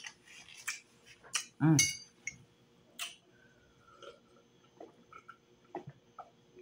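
Ice clinking against a glass mug of water as it is picked up and drunk from, with a short vocal sound about two seconds in, then soft gulps.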